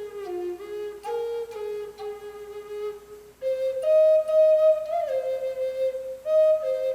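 Native American flute playing a slow melody of held notes, each phrase stepping down in pitch, with a short breath pause about halfway through.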